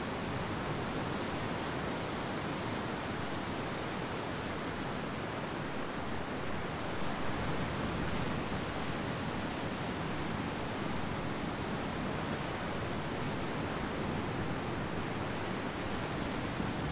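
Ocean surf washing on a beach: a steady, even rush of noise that swells slightly about seven seconds in.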